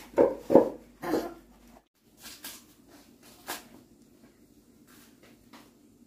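A person coughing three times in quick succession, followed by a few faint clicks and rustles from handling.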